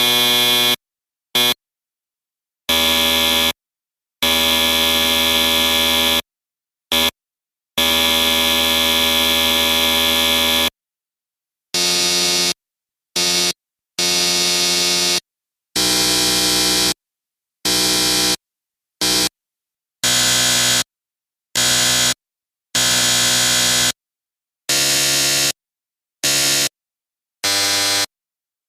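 A run of electric buzzer blasts, each a harsh, steady buzz, some short blips and some held for two to three seconds, separated by complete silence. The tone changes from one buzzer to the next.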